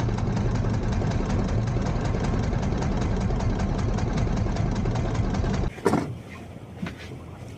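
Fishing boat's engine running with a steady, rapid knocking beat, then cutting off abruptly about six seconds in, leaving a much quieter background.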